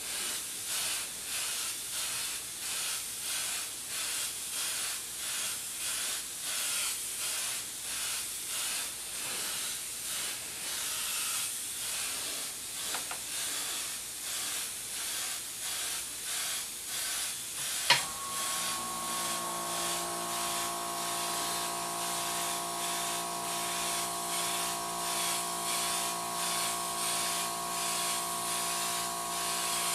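Airbrush spraying, its air and paint hiss rising and falling in rapid, even pulses as the trigger is worked to mist transparent colour over a painted T-shirt. About two thirds of the way through there is a sharp click, and after it a steady hum runs alongside the hiss.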